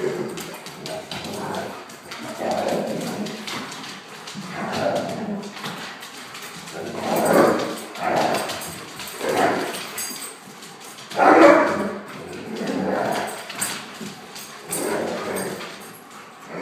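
Akitas vocalizing during rough play: a run of short, grumbling vocal bursts about once a second, loudest about two thirds of the way through. The noise sounds vicious but is play 'talk', not aggression.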